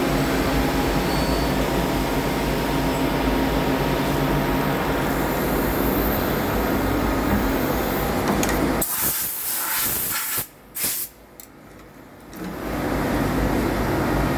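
CNC lathe running with a steady machine noise and faint hum. About nine seconds in the low running noise gives way to a short hiss, then it goes much quieter for about two seconds before the running noise comes back.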